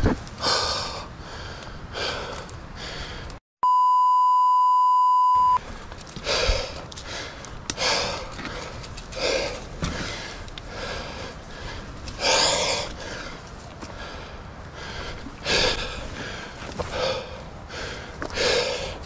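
Mountain biker breathing hard while riding, with loud breaths about every second or so. A few seconds in, the sound cuts out and a steady high beep plays for about two seconds, like an edited-in censor bleep.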